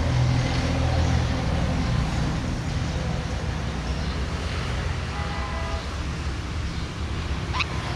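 Steady low motor-like rumble, with a short, quick chirp near the end.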